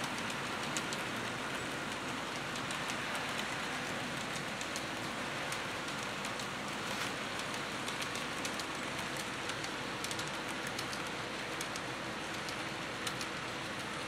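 HO scale model freight train rolling along the layout track: a steady rolling hiss with many small scattered clicks from the wheels on the rails.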